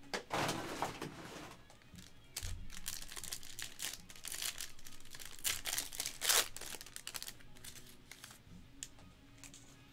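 Silvery foil trading-card pack wrapper being torn open and crinkled by hand, in irregular spells of crackling.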